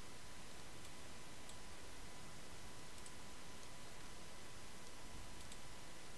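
A few faint, sharp computer mouse clicks, a pair near five and a half seconds and single ones earlier, over steady microphone hiss with a faint high tone.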